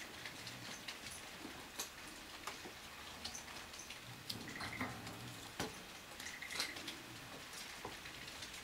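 Scattered light clicks and taps as kittens bat with their paws and claws at a fluffy cat teaser against the wire bars and plastic base of a cage. A short, high, steady tone is heard twice, from about halfway through.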